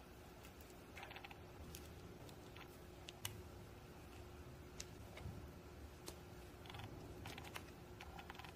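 Faint crackling and soft clicks of fluffy slime being pressed and pulled out of its plastic tub by fingers, with a faint steady hum underneath.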